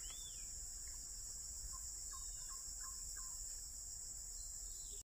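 Steady high-pitched insect chorus, with a few faint whistled calls that rise and fall.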